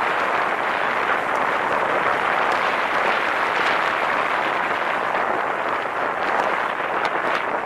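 Steady rush of wind over a camera microphone mounted on the outside of a moving car, mixed with road noise, with a few faint crackles.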